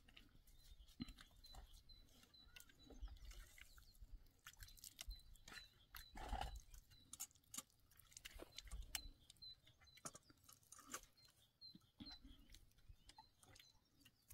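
Near silence with faint scattered clicks and crackles, and a faint high chirp repeating about three times a second through the middle; a brief, slightly louder rustle comes about six seconds in.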